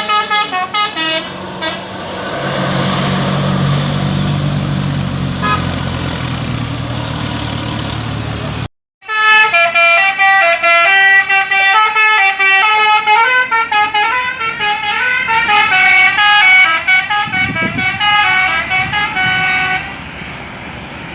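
Bus musical air horn (telolet) playing a fast, stepping melody of several tones at once, sounding briefly at the start and then for about eleven seconds after a sudden break about nine seconds in. Between the two, vehicle running noise with a low hum.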